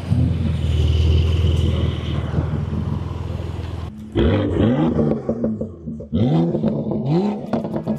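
A Porsche 992 Carrera T's flat-six engine drones past. About four seconds in, a BMW M2's straight-six takes over, revving in a series of short, rising throttle blips.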